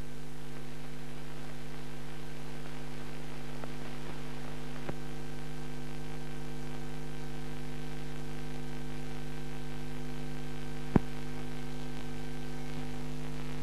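Steady electrical mains hum with a faint hiss, left on the soundtrack after the film ends, with one sharp click about eleven seconds in.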